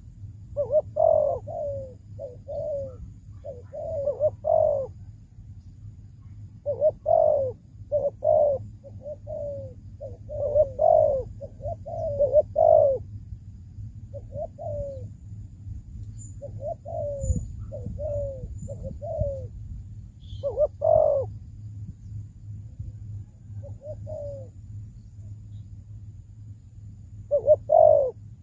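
Spotted dove cooing: repeated short phrases of low coo notes, with pauses of a second or more between them, over a steady low hum.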